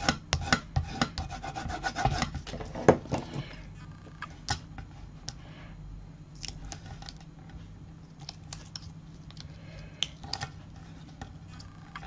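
A burnishing tool rubbed quickly back and forth over strips of double-sided score tape on cardstock, a dense scratchy rubbing for about the first three and a half seconds. After that, quieter scattered ticks and small crackles as fingernails pick at and peel the tape's backing.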